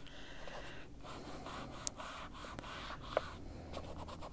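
Foam-tipped mini detail ink blending tool rubbing Distress Ink onto colouring-book paper: a soft, scratchy scrubbing, with a couple of faint clicks as it is dabbed.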